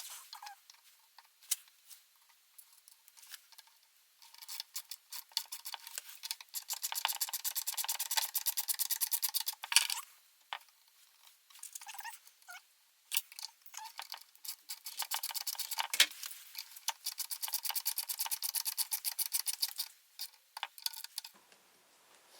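Ratchet wrench clicking rapidly as the bolts of a V-bearing blade guide are tightened, in two runs of several seconds each, with a few single knocks of tools on metal between them.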